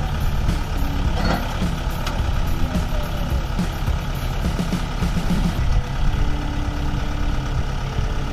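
Kubota MU5501 tractor's four-cylinder diesel engine running steadily under load while it backs a loaded trolley through soft soil.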